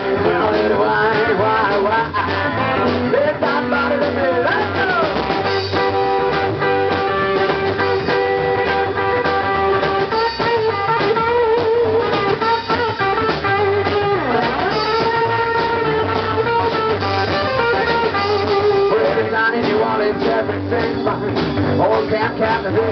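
Live band playing an up-tempo rock and roll number: electric guitar, upright double bass and drum kit.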